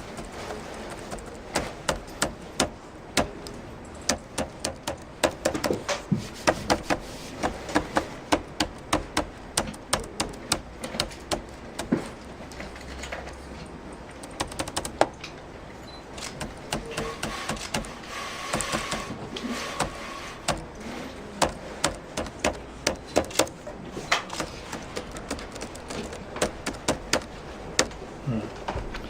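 Keys of the Galleria VF-HG laptop's keyboard being pressed one after another, giving sharp plastic clicks at an uneven pace of a few per second. About two-thirds of the way through there is a quicker, denser run of presses.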